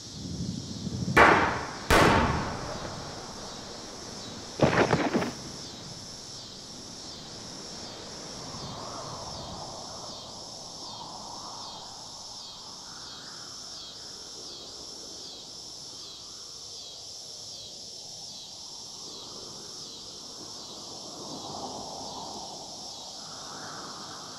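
Insects chirring outdoors in a steady high pulsing of about one and a half beats a second, with three loud sharp bangs: two about a second apart near the start and a third about five seconds in.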